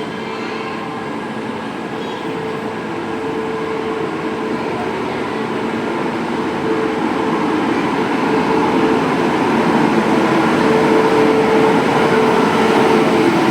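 Passenger train running on the rails, a steady rumble and rush with a faint whine, growing gradually louder.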